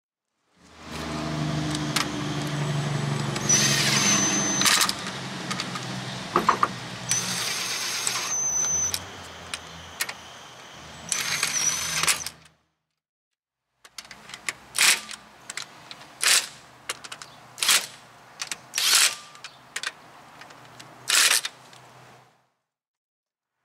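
Cordless impact wrench running the lug nuts onto a car's rear wheel, a long run with a high motor whine. After a short break come about six short bursts about a second apart as the nuts are run down one after another.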